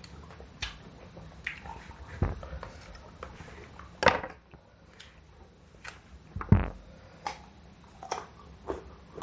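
Close-up eating sounds: bites and chewing of raw guava, with scattered short clicks and knocks, the loudest about four and six and a half seconds in.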